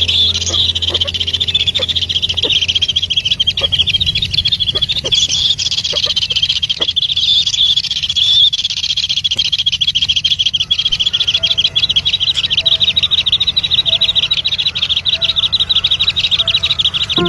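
Continuous high, rapid chirping of small animals. Faint soft musical tones join in about eleven seconds in.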